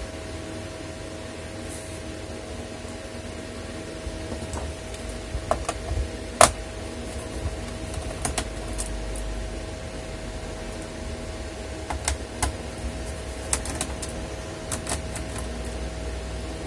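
Scattered light clicks and taps of fingers on a laptop's plastic underside, as the base and its rubber feet are prodded and pressed, the loudest click about six seconds in.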